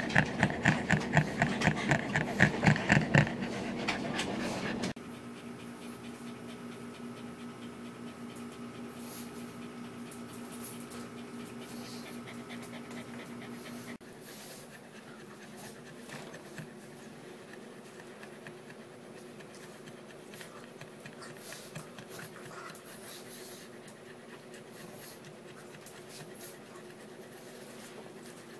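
Quick rhythmic panting from a nursing dog at close range, about four breaths a second, for the first few seconds. After that only faint sounds over a steady low hum.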